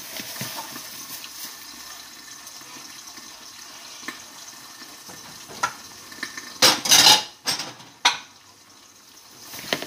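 Dishes clattering as plates and bowls are moved about in a dish drying rack: scattered knocks, with a loud rattling cluster about seven seconds in, over a faint steady hiss.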